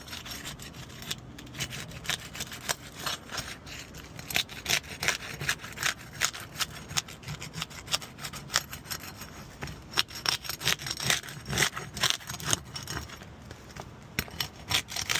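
Flat bar scraping and prying under old, brittle 3-tab asphalt shingles to work them loose for tear-off: a long run of irregular short scrapes and crackles.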